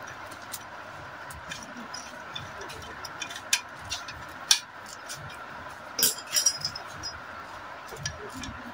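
Metal clinks and taps of a 10 mm tube spanner on the small bolt of an L28 diesel engine's lever-set bracket as it is tightened, about half a dozen sharp clicks spread out over a steady faint hum.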